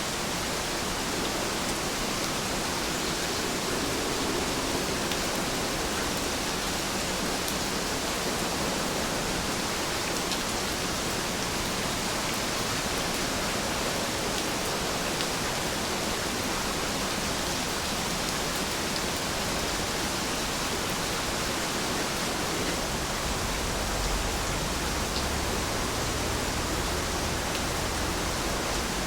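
Steady rain falling, an even hiss with no change in level, with a faint low rumble coming in near the end.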